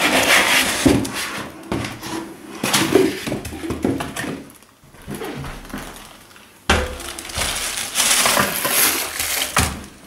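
Cardboard box and plastic packaging scraping and rustling as a compact mitre saw is lifted out of its box. There is a sudden knock about two-thirds of the way in, followed by more rustling and bumping.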